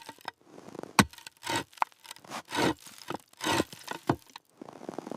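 Irregular crunching and scraping strokes, roughly two a second, with a sharp crack about a second in: heavy steps and an animal being dragged through snow.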